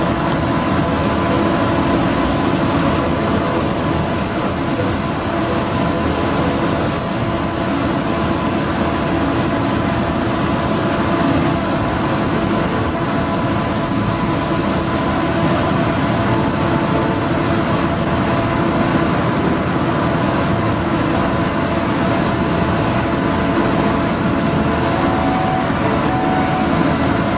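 Steady rumble of the Dover Seaways ferry's engines and machinery as the ship gets under way, with a few steady hum tones over the noise.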